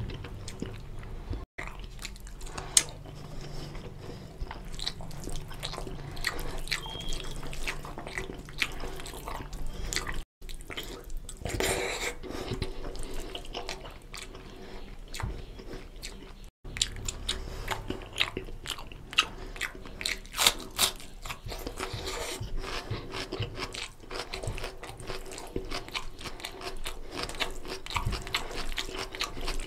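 Close-up eating sounds: fingers squishing and mixing rice into oily mutton curry on a steel plate, with chewing and wet mouth smacks, a dense run of short clicks and squelches. The sound drops out completely for a split second three times.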